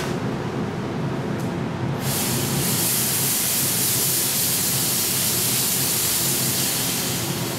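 A fog (smoke) machine hissing as it jets a stream of fog, starting about two seconds in and stopping near the end. Underneath it, a powerful mobile extraction fan drones steadily.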